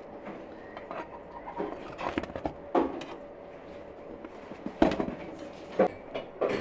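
Freshly baked bread being taken out of a clay tandir oven by hand and iron hook: irregular knocks and scrapes, the loudest about five seconds in.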